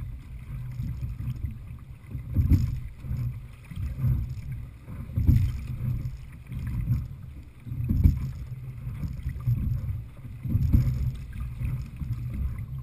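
Open-water rowing boat under way with a steady stroke: a low rumble of water and wind on the hull, and a knock about every 2.7 seconds as each stroke comes round, five strokes in all.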